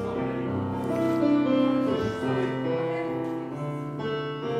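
Kawai digital piano playing slow held chords under a melody.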